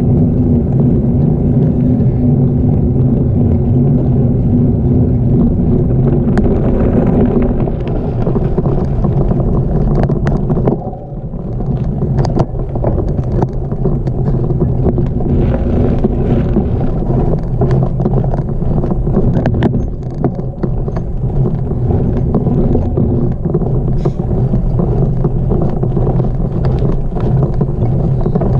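Gravel bicycle rolling over a loose gravel road: a steady, loud rumble from the tyres with scattered short clicks and rattles from stones and the bike. It briefly drops off about eleven seconds in.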